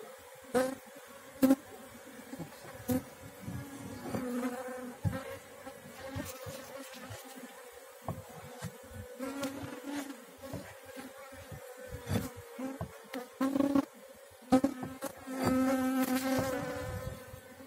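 Wild honeybee colony buzzing: a steady hum that swells and fades, loudest near the end, with a few sharp knocks now and then.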